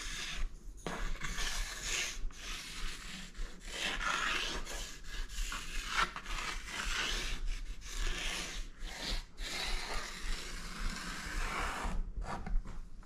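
A stick of charcoal scratching across a large sheet of paper in a series of drawing strokes, each lasting a second or two, with short breaks between them.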